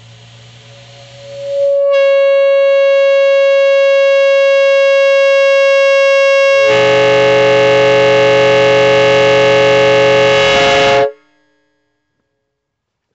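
Replica four-trumpet train air horn blowing. A single steady horn note swells in during the second second and holds. About seven seconds in, the other trumpets join in a fuller chord of several notes. The chord cuts off sharply about eleven seconds in.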